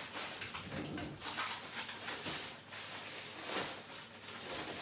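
Plastic shopping bags rustling and groceries being handled while they are put away, with irregular crinkles and light knocks.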